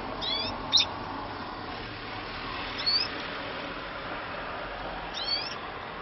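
Canaries giving short chirping calls, three brief bursts about two and a half seconds apart, the first ending in a sharp chirp. A steady hiss runs underneath.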